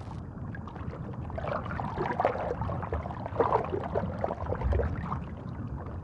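Stream water gurgling and sloshing, an irregular watery burble with many small bubbling blips.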